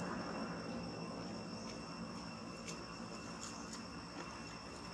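Steady high-pitched insect chorus, two even tones held throughout, with the tail of a passing aircraft's noise fading away at the start and a few faint clicks around the middle.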